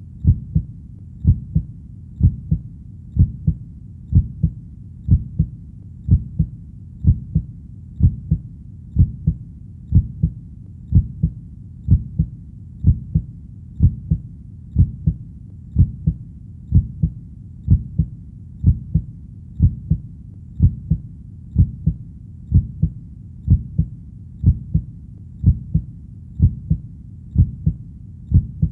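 Heartbeat: a steady double thump (lub-dub) about once a second, deep and even, over a steady low background.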